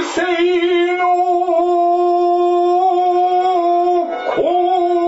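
A shigin chanter's voice holds a long, drawn-out note with a slight waver, the melismatic style of Japanese poetry chanting. It breaks off briefly about four seconds in, then carries on with the held note.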